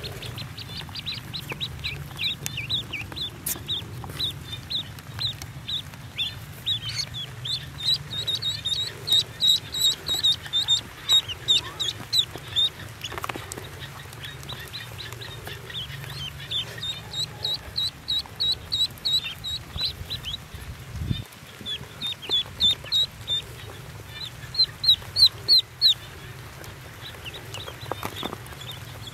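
Newly hatched ducklings peeping: runs of short, high peeps, several a second, in bursts that swell and fade, loudest near the middle and again about 25 seconds in.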